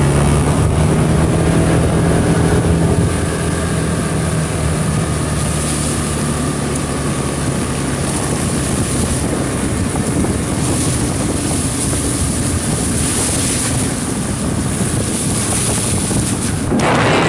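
Suzuki scooter engine running under way, its note steady for the first few seconds and then easing off, with wind buffeting the microphone. A louder rush of wind comes near the end.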